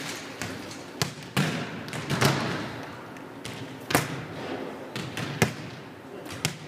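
Volleyball serves: a hand slapping the ball and balls thudding on a hardwood gym floor. Several sharp hits, each echoing in the large gym.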